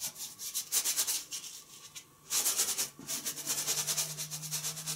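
Paintbrush scrubbing oil paint onto canvas in quick, short back-and-forth strokes: a dry rasping rub of brush on canvas, with a brief pause about two seconds in.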